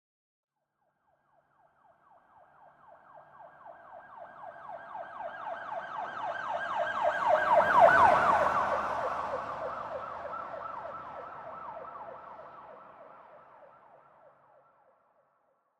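Police car siren in a rapid yelp. It grows louder as the vehicle approaches, peaks about halfway through with a brief low rumble from the vehicle passing close, then fades away as it drives off.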